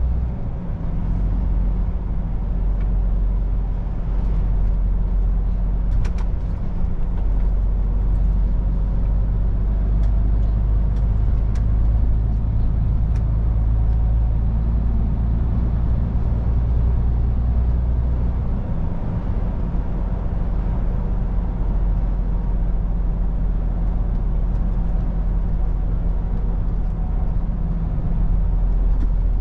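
MAN truck's diesel engine running steadily under way, a low drone over road noise, its note shifting a few times, most clearly about seven seconds in and again past the middle.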